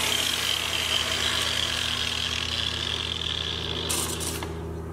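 Electric power sander running and abrading the weld bead on a sheet-steel door frame, a steady motor hum under a hissing grind. About four seconds in the grinding stops with a short scrape and the motor winds down.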